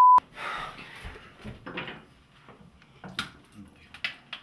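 A steady 1 kHz test tone cuts off a fraction of a second in. It is followed by small knocks, clicks and rustles of things being handled at a bathroom sink, with sharper clicks around the middle and near the end.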